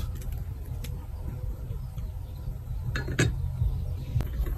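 Steel cleaver chopping into a green coconut on a plastic cutting board: a few sharp knocks, the loudest cluster about three seconds in, over a steady low rumble.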